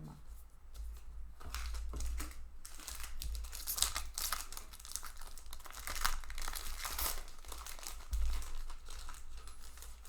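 Magic: The Gathering booster pack's foil wrapper being torn open and crumpled, a long run of crinkling and crackling rustles.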